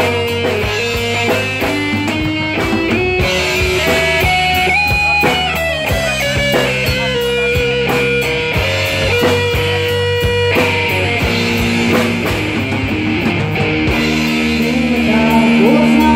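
Live rock band playing through stage amplifiers: an electric guitar melody over a drum kit.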